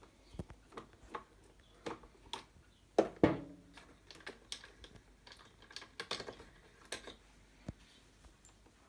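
Irregular clicks and knocks of small parts and tools being handled while a PowaKaddy FW3 trolley is taken apart, with two louder knocks close together about three seconds in.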